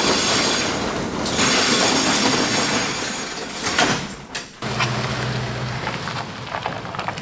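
Corrugated steel roll-up shop door rattling as it is raised for about four seconds, then a pickup truck's engine running as it backs up.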